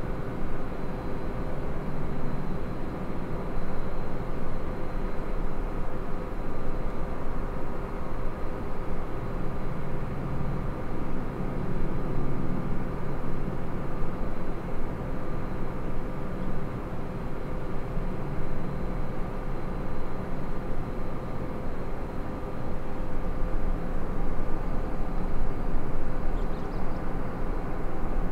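Steady outdoor background rumble with a constant machine hum underneath, and no distinct events.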